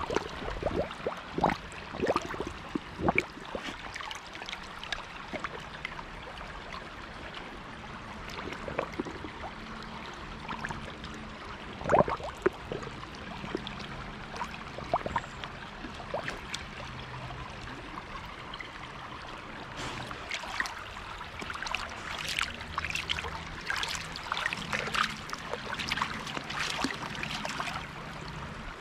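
Shallow stony stream trickling and gurgling, with sharp splashes from a dog wading through it and dipping its muzzle into the water. The splashing is busiest over the first few seconds, with one loud splash about twelve seconds in, and picks up again over the last eight seconds.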